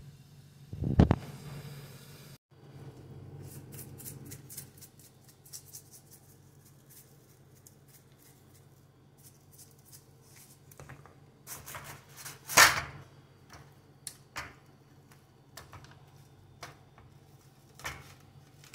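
Scattered light clicks and taps of handling, with a thump about a second in and a louder knock about two-thirds of the way through, over a faint low hum.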